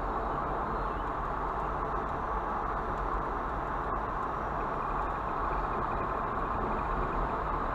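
Vehicle driving: a steady, even rush of road and tyre noise with no clear engine note.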